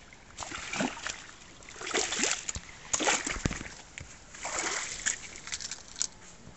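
Shallow water splashing and sloshing in about five separate surges as bare feet wade through reeds and water plants.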